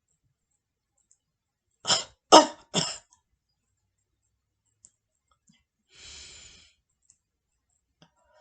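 Three rapid, forceful coughs in quick succession, pushed out with the stomach muscles, as in a productive coughing exercise after a held diaphragmatic breath; the middle cough is the loudest. A softer, short breath follows a few seconds later.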